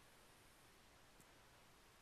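Near silence: faint room hiss with a single faint click about a second in.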